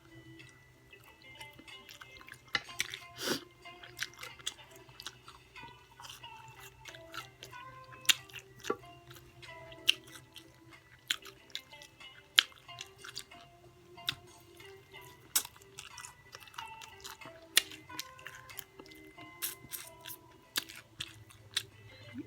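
Close-up eating of extra-crunchy fried chicken: sharp crunches and wet chewing clicks every second or so, over soft background music.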